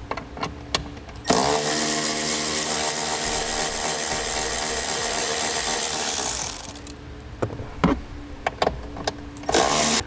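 Small power tool, a drill/driver fitted with a 10 mm socket, running steadily for about five seconds as it backs out a bolt, then small clicks of the tool and a short second run near the end.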